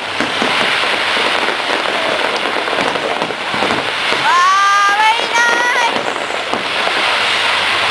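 Fireworks crackling overhead: a dense, steady crackle of many small pops from crackling stars. About four seconds in, a high tone rises and holds for about two seconds over the crackle.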